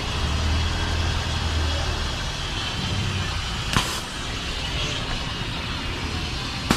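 High-pressure sewer jetter running: a steady drone of the engine and pump with a hiss of spraying water, broken by two sharp knocks, one just past the middle and one at the end.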